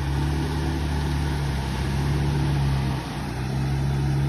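A vehicle engine running steadily, its hum dipping briefly about three seconds in.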